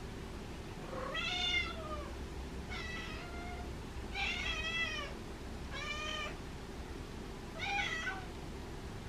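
Domestic cat meowing five times, each meow rising and then falling in pitch, with a pause of about half a second to a second between them.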